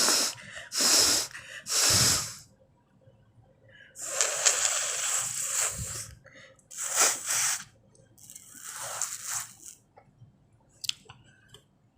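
A woman blowing air hard out through her nose without a handkerchief: three short blasts, then one long blast of about two seconds, then a few shorter ones. The blows are dry, since she has no cold.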